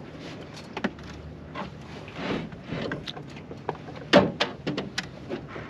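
A series of knocks and clicks from gear being handled in a boat, with a couple of short rustles; the loudest is a sharp thump a little past four seconds in.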